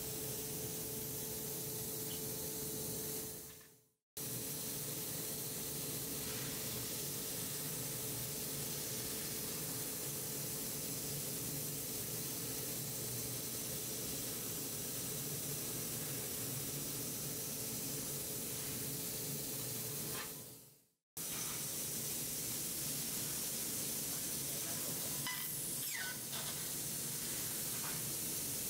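A 12 kW fiber laser cutter's head cuts carbon steel plate, making a steady hiss of assist gas and molten metal blowing through the cut, with a few faint crackles near the end. The hiss fades out twice, about 4 seconds in and again near 21 seconds, and each time it starts again abruptly.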